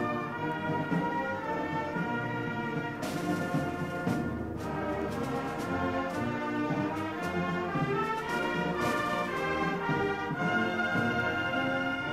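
Wind band music played from a 1980 LP record: a full band with the brass section in front, sustained chords and melody, with loud accented hits about three and nine seconds in.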